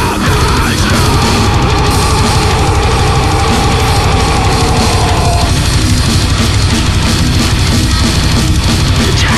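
Death metal recording: heavily distorted guitars, bass and drums playing at full, steady loudness. A long held high note slowly slides down in pitch from about a second in until about halfway through.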